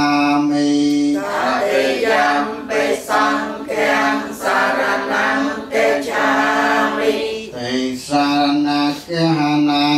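Group of lay Buddhist worshippers chanting in unison, a sung recitation with long held notes at the start and again near the end, rising into more varied phrases in between.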